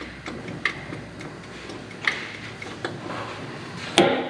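Scattered light metallic ticks and clinks, with one sharper clink that rings briefly near the end, as steel parts (a nut used as a spacer and a small hydraulic ram) are fitted against a blade pin.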